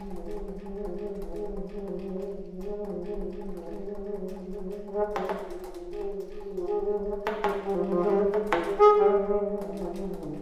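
Solo alto saxophone playing a low held line with many sharp clicks running through it, broken by a few loud, bright accented notes in the second half.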